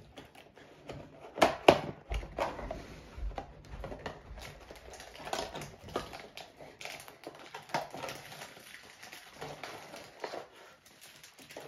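Cardboard trading-card mega box being opened by hand: a scatter of clicks and taps, with two sharp snaps about a second and a half in, and cardboard scraping and rustling as the lid is worked open and the packs are reached for.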